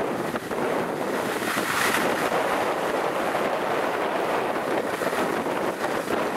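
Wind rushing over the microphone while skiing downhill, mixed with the hiss of skis sliding on groomed snow.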